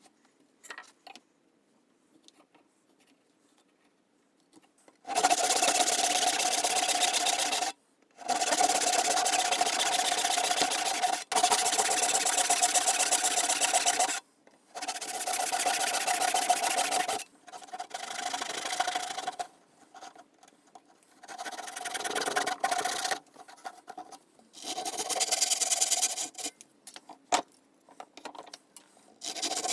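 A hand tool cutting wood in long rasping strokes, each lasting two to three seconds, with short pauses between them. About halfway through, the strokes become shorter and weaker.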